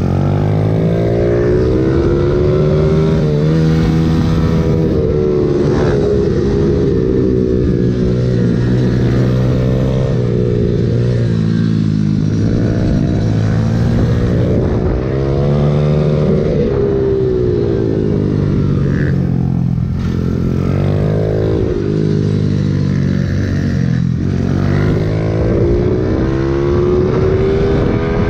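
Pit bike engine heard onboard during a fast track lap, revving up on the straights and dropping back as the rider rolls off for the corners, several times over.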